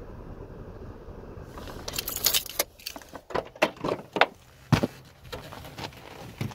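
Car keys jangling and clicking at the ignition lock: a run of sharp metallic rattles and clicks with one heavy low thump about three seconds in, over a steady low rumble.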